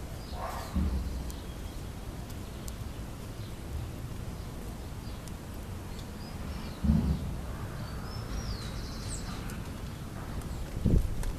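Outdoor ambience: a steady low rumble with three dull thumps, about a second in, near the middle and near the end. Birds chirp briefly now and then in the background.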